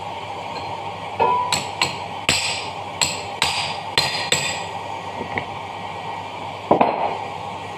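Hammer strikes on a steel punch and shaft sleeve in the dough mixer's cast-iron gearbox housing, driving the part into its bore: a run of about eight sharp metallic taps, roughly two a second, then a single tap near the end.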